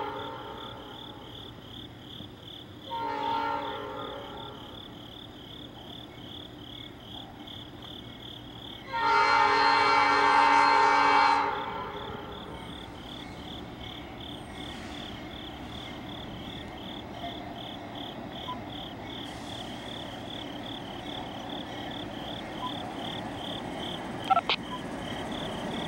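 Locomotive horn sounding a chord: one blast fading out just at the start, a short blast about three seconds in, and a long, loud blast of about two and a half seconds about nine seconds in. Under it runs a steady high, pulsing drone.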